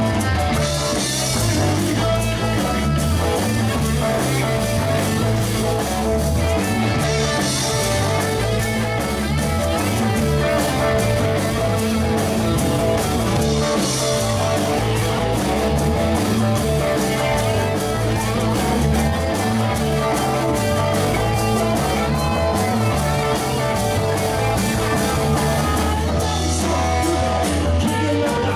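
Live rock band playing with guitar over a steady drum-kit beat, with cymbal crashes now and then.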